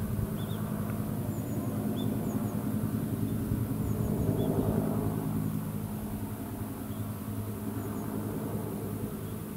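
A steady engine drone that swells about four to five seconds in and then slowly fades, as if passing, with a few faint high chirps over it.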